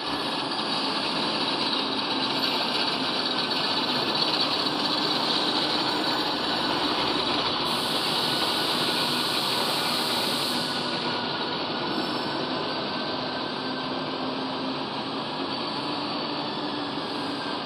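Large long-bed lathe running, its big chuck spinning: a steady mechanical whir with a faint hum, and a brief brighter hiss about eight seconds in.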